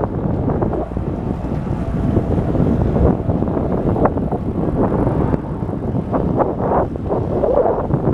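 Wind buffeting the microphone: a continuous, uneven rumble and rustle with gusty surges.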